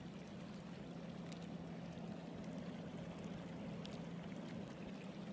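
Steady rush of flowing water from a partly iced-over creek, with a steady low hum under it and a few faint ticks.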